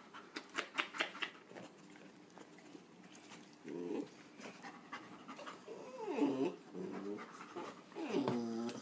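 Siberian husky puppy panting, then making three short whining yowls that bend in pitch, the longest near the end as it faces the golden retriever.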